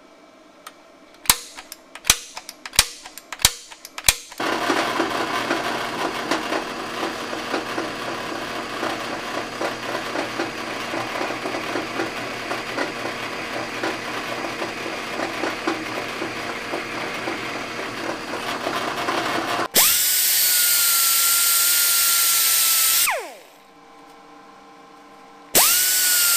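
About half a dozen sharp clicks of a centre punch marking a piece of steel angle iron. Then a drill press drills a hole through the steel for about fifteen seconds with a steady grinding noise. Two short runs of an air-powered grinder follow, each a high whine that winds down as it stops.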